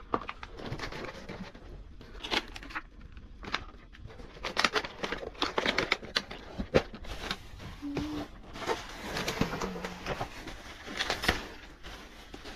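Plastic clamshell strawberry containers and cardboard boxes being handled and shifted, giving irregular clicks, crackles and rustles.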